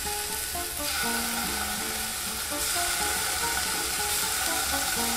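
Sea scallops sizzling as they are laid into smoking-hot olive oil in a nonstick frying pan, the sizzle growing louder about a second in and again a little later as more scallops go in.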